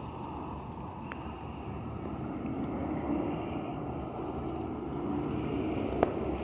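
Steady outdoor background noise, mostly a low rumble, with one sharp click about six seconds in.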